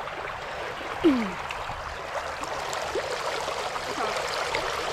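Fast-flowing creek water rushing steadily over rocks and around wading legs. About a second in, a brief downward-sliding voice-like sound cuts through.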